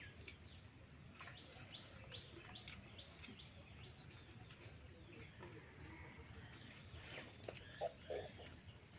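Faint birdsong: small birds chirping, with a high call that slides down in pitch, heard three times. Near the end come two brief, slightly louder low sounds.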